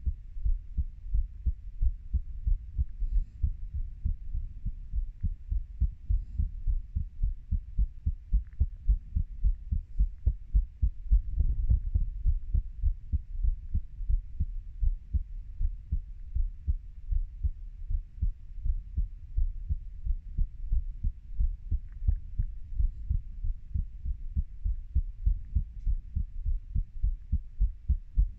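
A 30-year-old adult's heartbeat, with low beats repeating at a steady, even pace. There is a brief rise in background noise about eleven seconds in.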